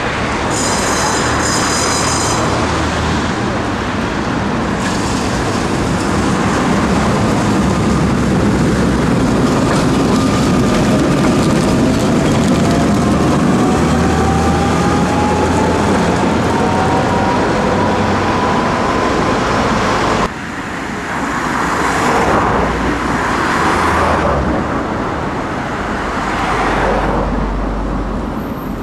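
Tram running along a street track among road traffic, its motors giving a rising whine as it goes by. A second tram then approaches, rumbling over the rails.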